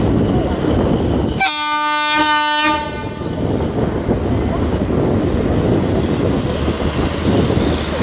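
WCAM-2 electric locomotive's horn sounding one steady blast, lasting just over a second, about one and a half seconds in. It is the loco pilot's acknowledgement honk. Around it is the steady rumble of the arriving train.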